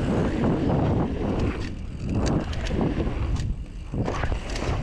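Mountain bike rolling fast down a dirt trail: tyre noise and the bike rattling over the ground, with a few sharp clicks and knocks, under heavy wind buffeting on the microphone.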